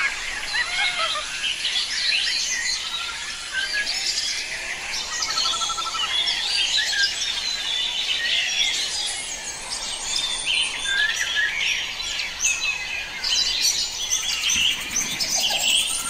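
A chorus of many forest birds chirping and whistling over one another, with a short rapid trill about two and a half seconds in.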